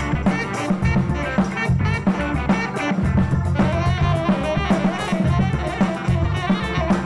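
Live band playing a jazzy groove: a drum kit keeps a steady beat under saxophone, electric guitar and keyboard, with a melodic line moving about midway through.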